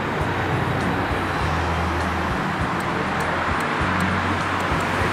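Steady city traffic noise: a continuous mix of passing cars and engine rumble.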